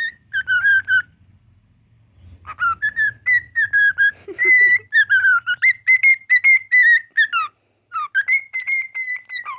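Cockatiel singing at close range in warbling whistled phrases: a short phrase, then after a pause a long run of whistles, and another phrase near the end.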